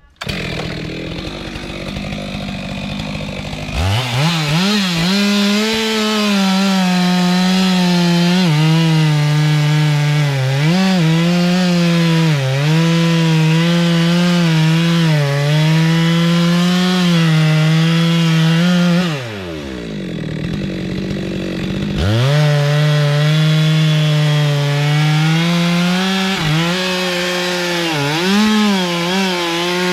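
Stihl two-stroke chainsaw revving up about four seconds in and cutting into a kapok trunk, its engine pitch sagging and recovering as the chain bites into the wood. About two-thirds through it drops back toward idle for a few seconds, then revs up and cuts again.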